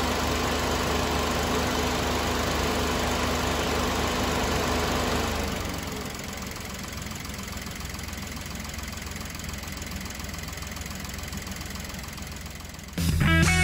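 Suzuki Jimny JB64's 658 cc three-cylinder turbo engine idling steadily, heard from about half a metre away with the bonnet open. It drops noticeably in level about five and a half seconds in. Just before the end, guitar music cuts in.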